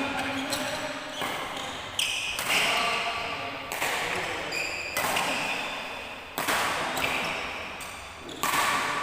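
Badminton rackets smacking a shuttlecock in a fast doubles rally, a sharp hit every second or two, each ringing on in the reverberation of a large hall.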